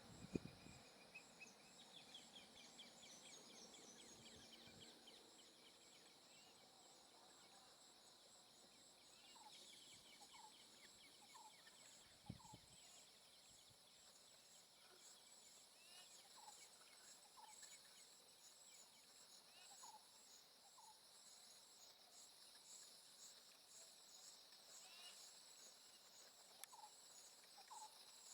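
Faint forest ambience: insects chirring steadily and high, with short rising animal calls repeating every second or two.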